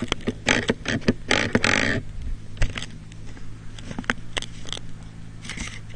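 Handling noise from a camera mounted on an RC transmitter as it is gripped and fumbled. There is a quick flurry of clicks and knocks in the first two seconds, then scattered single clicks, over a steady low hum.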